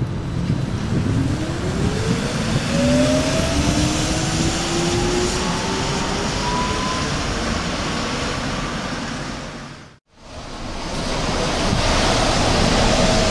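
Volvo 7900 Hybrid bus pulling away, its electric drive whine rising smoothly in pitch over several seconds above road and wind noise. The sound cuts out briefly near the end, then another hybrid bus comes in with a steadier whine.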